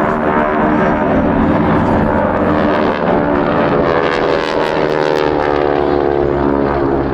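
Propeller engines of a formation of GEICO Skytypers' SNJ-2 warbirds running in a flyby, a dense engine drone whose pitch slides down as the planes pass.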